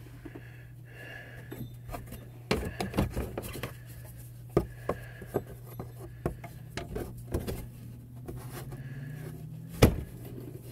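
Scattered clicks, taps and knocks of hands and tools handling plastic trim under a car's front bumper, with one sharp knock near the end, over a steady low hum.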